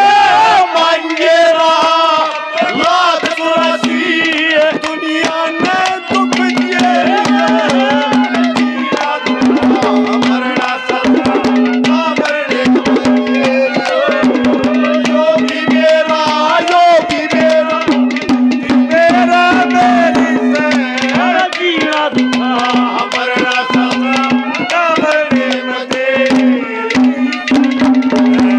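Ragni accompaniment band playing an instrumental passage: a wavering melody over a steady low held note that breaks off and resumes every few seconds, with hand-drum strokes throughout.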